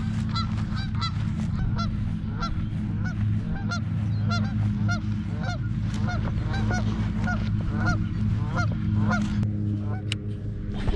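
Geese honking in a rapid, steady series of about two to three calls a second, stopping shortly before the end, over a steady low hum. A single sharp click comes near the end.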